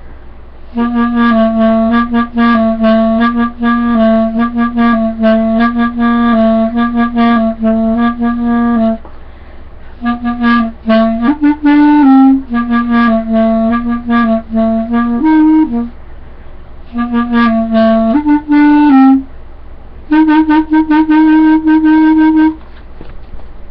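Solo clarinet playing rapid repeated tongued notes, mostly on one low pitch with brief steps upward, in four phrases separated by short breaks. The last phrase sits on a higher note.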